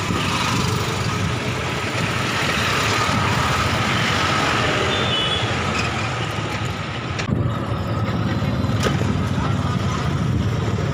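Steady road noise of riding in an open-sided electric rickshaw (toto), with a faint steady whine throughout and a sharp click about seven seconds in and another near nine seconds.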